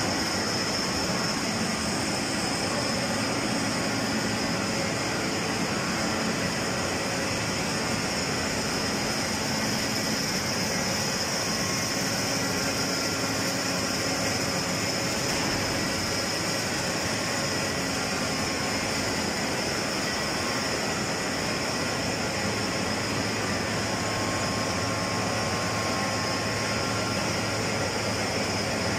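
Hydro turbine and generator running in a powerhouse: a steady rushing roar with a faint low hum that firms up about two-thirds of the way through.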